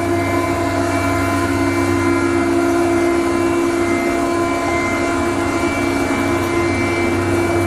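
Peerless stainless steel slurry mixer's electric rotor drive and a connected pump running together, recirculating water back into the tank: a steady machine hum with several held tones over an even noise.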